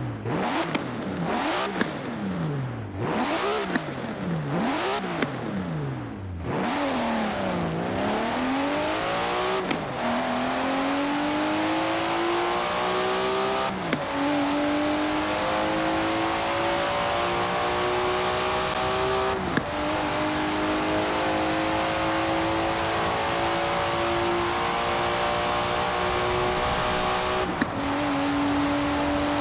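Nissan Skyline GT-R R34's RB26DETT twin-turbo straight-six revving in quick blips, then a slower rev that falls away. It then accelerates hard through the gears, the engine note climbing steadily, with four upshifts, each a sudden drop in pitch.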